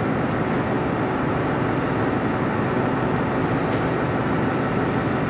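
Steady, even rushing noise with no distinct knocks, clanks or voices.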